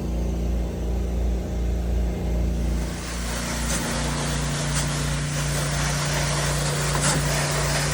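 Engine of a Honda-powered 8-gallon-a-minute pressure washer running steadily, with a broad hiss like spraying water coming in about three seconds in.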